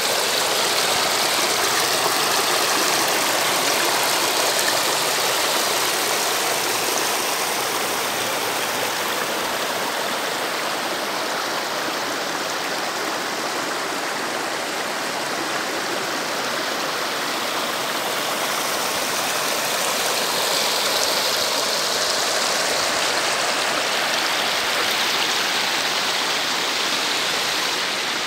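Shallow stream water rushing and splashing over a low line of stacked stones, a steady, even rush.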